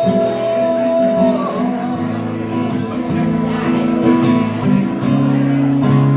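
Acoustic guitar strummed in an instrumental passage of a slow song, played live.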